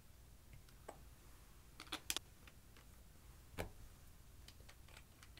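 Faint, scattered light clicks and taps from handling the glue bottles and glass dishes on a tabletop, loudest in a quick cluster about two seconds in, with another tap a little later and softer ticks near the end.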